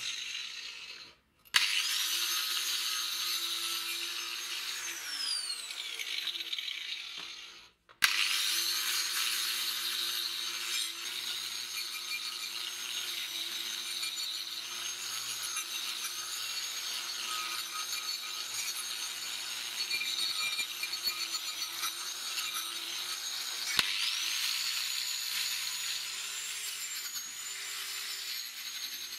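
Angle grinder with a wire cup brush scouring rust off steel parts, its motor running steadily under the scratchy hiss of the brush on metal. The sound drops out briefly twice in the first eight seconds.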